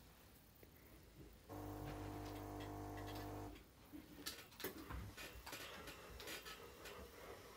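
A steady hum of several even tones starts suddenly about a second and a half in and cuts off two seconds later. After it come light clicks and soft taps as a cat paws and slaps at another cat lying in a vinyl bean bag.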